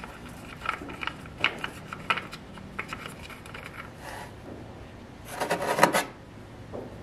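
Oil fill cap with its dipstick being twisted loose by hand on a 125cc mini jeep engine: short rubbing squeaks as it turns, then a louder scraping rattle about five and a half seconds in as the dipstick is drawn out of the fill hole.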